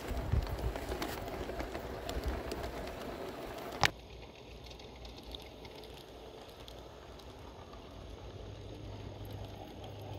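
G-scale model train rolling along garden track, its wheels clattering with scattered clicks, heard up close from a flatcar. About four seconds in a sharp click cuts it off to a quieter, steadier rolling sound, with a low hum coming in near the end.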